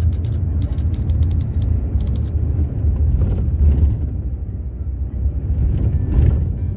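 Steady low rumble of a moving vehicle heard from inside the cabin, engine and road noise together. Quick rattling ticks come and go through the first two seconds.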